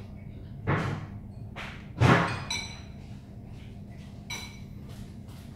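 Kitchenware handled on a counter: two thuds, the louder about two seconds in, followed by light ringing clinks of dishes.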